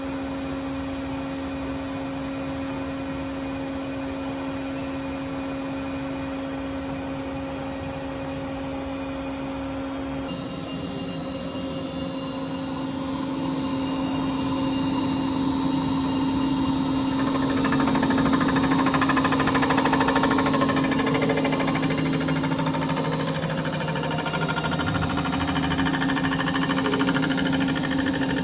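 A metalworking machine tool running steadily with a constant hum. About ten seconds in the sound changes abruptly, a high whine joins, and it grows louder and busier.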